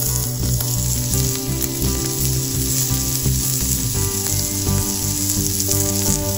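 Shrimp skewers sizzling steadily on a hot cast-iron grill plate, with background music playing over it.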